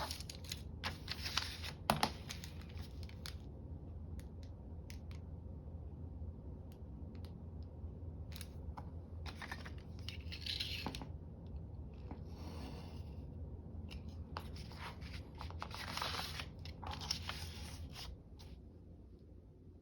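Paper being handled and torn: bursts of crisp rustling and tearing, with a longer tear about twelve seconds in. A steady low hum underneath stops near the end.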